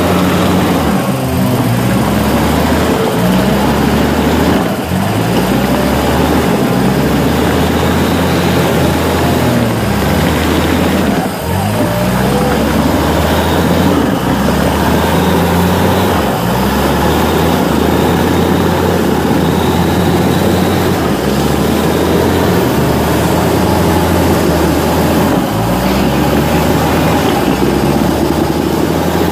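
Off-road 4x4 engine running hard, revving up and down repeatedly over a steady low drone.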